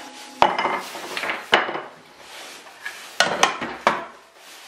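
Tools handled on a workbench: a brush sweeping sawdust, with sharp knocks and clinks as the circular saw is set down on the metal rails of the crosscut jig. Several single knocks, three of them close together about three to four seconds in.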